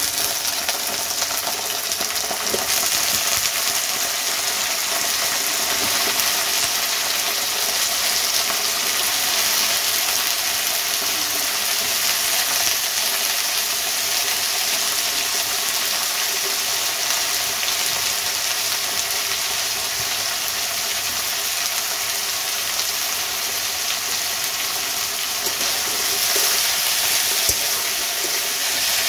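Cut potatoes frying in hot oil in a kadai, a loud steady sizzle, with a metal spatula stirring them near the end.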